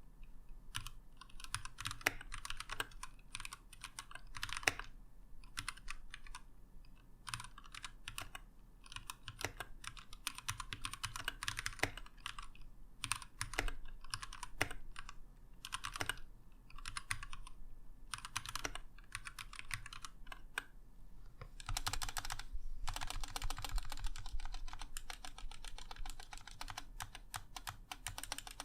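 Typing on a Keychron K6 mechanical keyboard: runs of key clicks with short pauses between them, becoming fast, continuous typing in the last several seconds.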